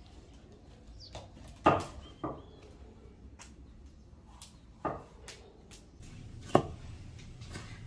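A few sharp, irregular knocks and clacks of cooking utensils, with the loudest a little under two seconds in and another about six and a half seconds in.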